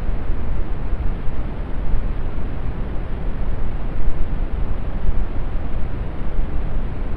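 Steady brown noise: an even, deep rumbling hiss strongest in the bass and fading toward the treble, with no changes or events.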